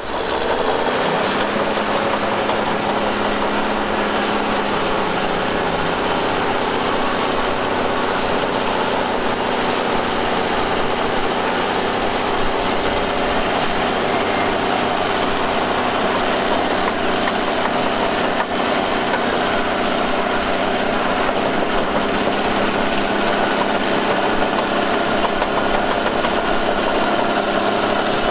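Heavy earthmoving machine's diesel engine running steadily.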